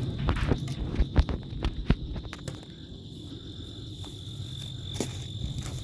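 Crickets chirping in a steady, high-pitched drone, with a few sharp knocks and clicks in the first two seconds and another about five seconds in.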